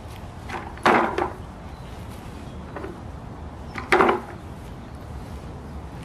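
Two loud knocks about three seconds apart, with a few fainter ones near them, as the headless red plastic body of a Henry vacuum cleaner is kicked about on grass.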